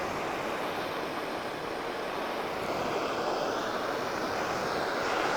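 Gas blowtorch burning steadily, its flame heating thick body filler on a body panel to loosen it.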